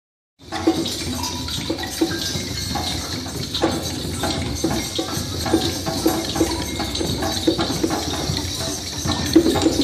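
A large group making a dense, irregular rattling hiss with small hand shakers and their hands, like running water, with many scattered small taps; it starts about half a second in.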